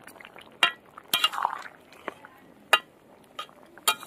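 Flat metal spatula knocking and scraping against a metal kadai while stirring a simmering vegetable curry, giving several separate sharp clinks.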